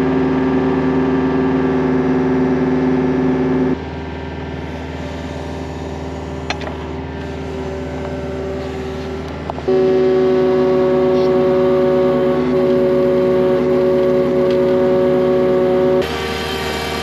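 Excavator engine running steadily under hydraulic load, driving an auger attachment that bores post holes into the ground. The sound changes level abruptly three times.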